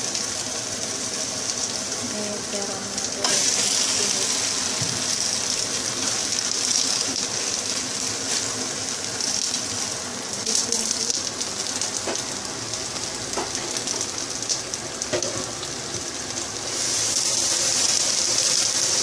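Sliced aromatics and green chilies, then sliced eggplant, sizzling in hot oil in a pot while being stirred and turned with a wooden spatula. The sizzle swells about three seconds in, again around ten seconds, and once more near the end.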